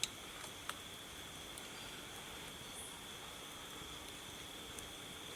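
Steady, high-pitched insect drone, with a couple of faint clicks in the first second.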